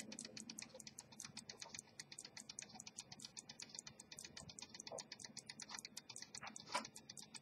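Circa 1790–1795 Swiss silver jump-seconds pocket watch ticking, a fairly faint, steady, rapid tick of about five beats a second from its running movement, with one louder click near the end.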